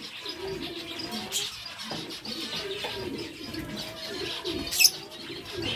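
A flock of zebra finches calling in an aviary: many short, overlapping calls and chirps, with a sharp click about five seconds in.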